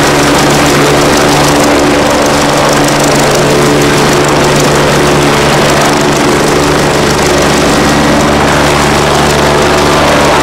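Kawasaki BK117 B-2 helicopter lifting off into a low hover and turning, its rotors and twin turboshaft engines running loud and steady.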